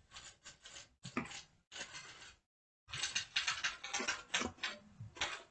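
Typewriter sound effect: rapid runs of mechanical key clicks in several bursts, with a short pause about two and a half seconds in.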